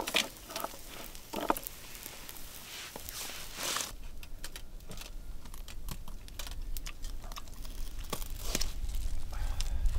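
Scattered clicks, clinks and rustling of dishes and steamed oyster shells being handled, with a low rumble building up in the second half.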